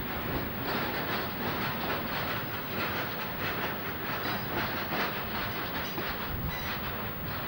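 Freight train of hopper wagons rolling past, steel wheels clattering over the rail joints in a steady run of clicks.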